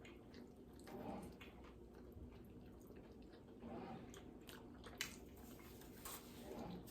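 Faint close-up chewing of a sub sandwich, soft wet mouth sounds with a sharp little click about five seconds in.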